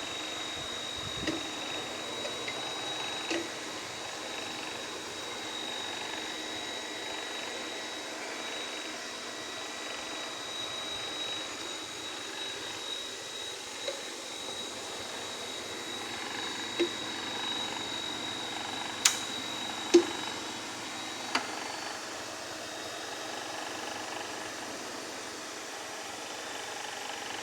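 Growth chamber running with a steady fan and compressor hum and a thin high whine, broken by a handful of sharp clicks or pops. The whine cuts off at a loud click about two-thirds of the way through, followed a second later by another loud pop. These are the clicks the owner cannot place: relay switching, or abnormal popping from a clogging compressor.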